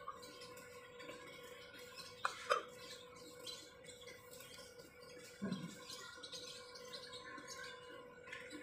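Outdoor ambience: a few scattered bird chirps over a steady low hum, with a couple of short handling sounds.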